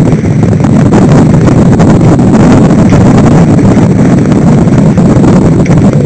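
Loud, steady wind buffeting on the microphone of a camera mounted at the stern of a Thames A rater sailing boat under way.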